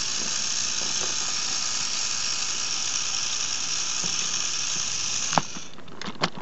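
Small battery electric motor of a Trackmaster toy tender engine whirring steadily at a high pitch, then stopping with a sharp click about five seconds in, followed by a couple of light clicks.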